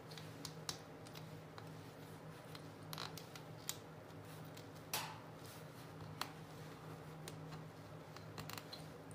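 Light, scattered clicks and ticks of thread being wound and pulled around small nails on a string-art board, over a faint steady low hum.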